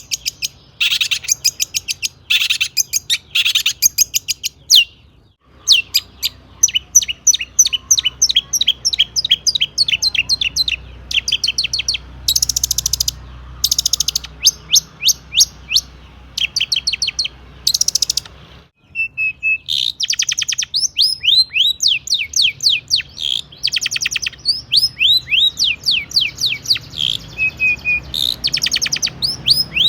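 Long-tailed shrike (cendet) singing a fast, varied song of rapid strings of short falling chirps mixed with harsher, raspy bursts, broken by short pauses about five and nineteen seconds in. The song is packed with mimicked calls of other birds.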